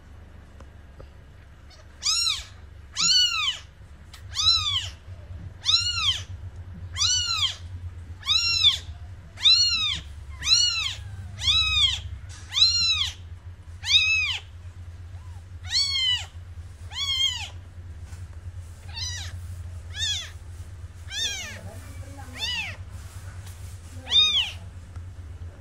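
A newborn kitten crying with high, short mews that rise and fall in pitch, about one a second, starting about two seconds in and growing fainter near the end. These are a kitten's cries while it lies apart from its mother. A steady low hum runs underneath.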